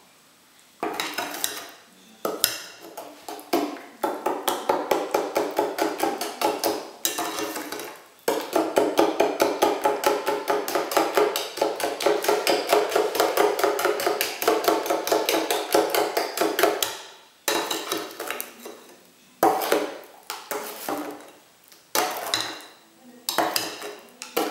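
A hand whisk beating cake batter in a ceramic bowl: fast, rhythmic clinks of the whisk against the bowl, several strokes a second, in runs of a few seconds broken by short pauses. The longest run lasts about nine seconds, from about eight seconds in.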